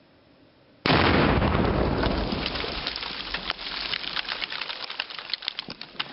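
Tannerite exploding at pumpkins: a sudden loud blast about a second in, with a long rumbling tail that fades over several seconds. Through the tail comes a patter of sharp ticks as dirt and pumpkin debris fall back to the ground.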